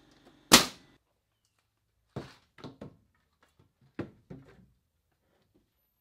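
Wooden knocks and thuds of framing lumber being set into a door opening as a stud is fitted under the header: one sharp, loud bang about half a second in, then a run of lighter knocks a couple of seconds later.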